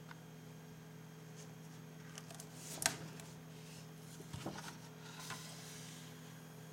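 Hardcover comic book being opened and its pages handled: a sharp paper-and-board snap about three seconds in, then softer page rustles and light handling clicks, over a faint steady hum.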